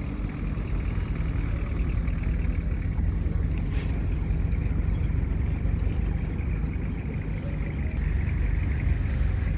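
Steady low rumble of an off-road vehicle driving over a rough desert dirt track, heard from on board a vehicle in the convoy.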